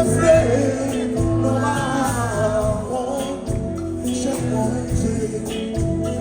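Background music: a song with a singing voice over a steady bass line and light percussion.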